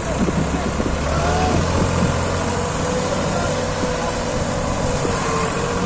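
Diesel engine of a New Holland 3600-2 tractor running under load, pulling a trolley heavy with soil; it picks up and gets louder about a second in, then holds steady. Men's voices are heard over it.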